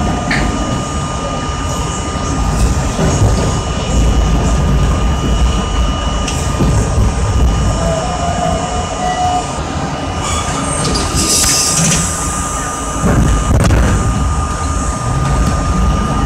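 R32 subway train running through a tunnel, heard from on board: a steady low rumble of wheels on rail with a constant high thin tone. A brief hiss comes about eleven seconds in.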